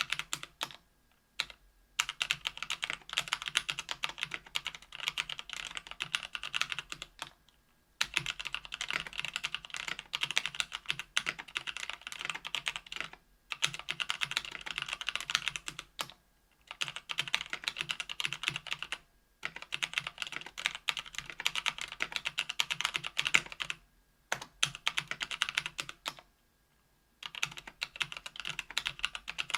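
Typing on a KBDfans Tofu 65% aluminium mechanical keyboard with stock Kailh Speed Silver linear switches, an aluminium plate and GMK keycaps. Fast runs of keystroke clacks are broken by short pauses every few seconds.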